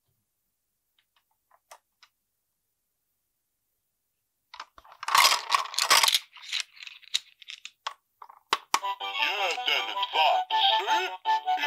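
A few light plastic clicks, then the plastic cookie pieces clatter out of the opened belly of the Dumel Discovery hippo toy for about two seconds. After a few more clicks, the toy plays a cheerful electronic tune with a synthetic singing voice, starting about two-thirds of the way in.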